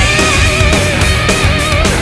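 Loud heavy rock music with guitar, with a lead line that bends and wavers in pitch.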